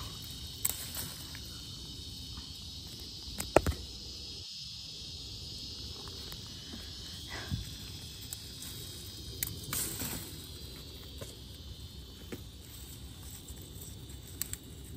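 Steady high-pitched chirring of insects, with a few sharp clicks and knocks close by, the loudest about three and a half seconds in and another pair around ten seconds in.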